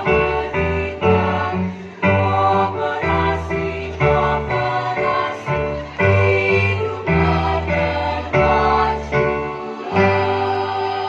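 School choir singing in parts, in strongly accented chords that come about once a second; the last one, near the end, is held.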